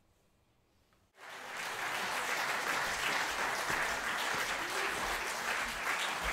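About a second of hush, then audience applause breaks out suddenly and carries on steadily, many hands clapping at once.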